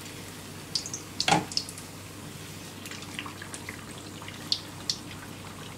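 Kandarappam batter deep-frying in hot oil in a kadai: a soft steady sizzle with scattered sharp pops and crackles, the loudest a little over a second in.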